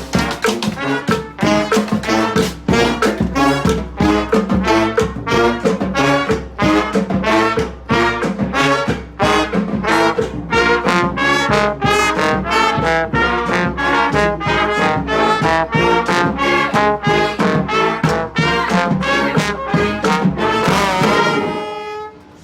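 Brass street band of trombones and trumpets with drums playing a lively tune to a steady beat. Near the end the band swells on a rising final note and cuts off.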